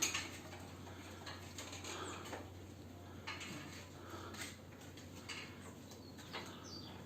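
A few light, scattered clicks and knocks of objects being handled, about one a second, over a faint steady low hum.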